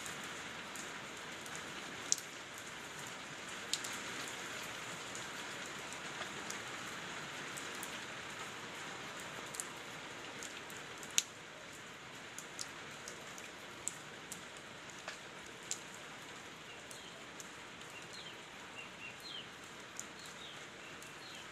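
Steady rain falling into standing water on pavement: an even hiss of drops, with louder single drops landing close by every second or so. The rain eases slightly about halfway through.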